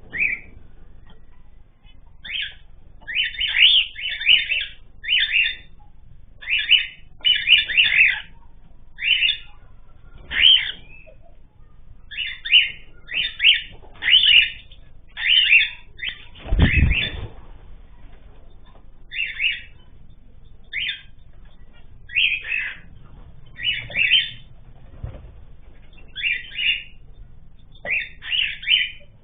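Caged ornamental birds calling: a long run of short, sharp chirps, often in quick clusters, with one low thump about seventeen seconds in.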